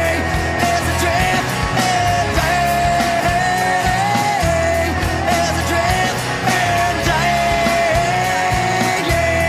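Grunge rock band recording in an instrumental stretch without sung words: drums and bass under a held lead line that bends up and down in pitch.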